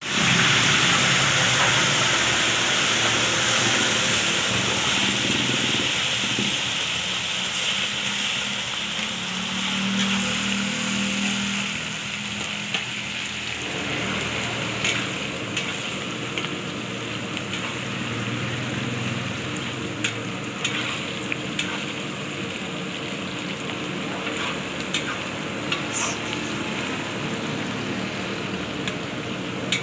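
Shredded cabbage hitting hot oil in a steel wok and frying with a loud sizzle that slowly eases as it cooks. Through the second half, short clinks and scrapes of a metal spatula stirring against the wok.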